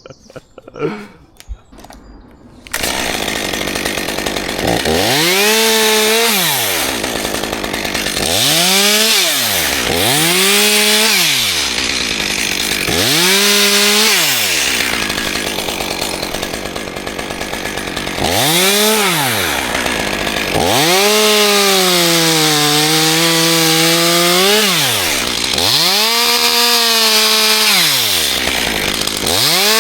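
Two-stroke chainsaw running, starting up about three seconds in, then revving up and dropping back to idle again and again as it cuts wood. Its pitch sags while the chain is in the cut.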